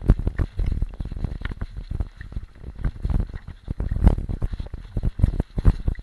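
Footsteps and kit knocking against a body-worn camera as the player moves: a fast, irregular run of dull thumps and rustles.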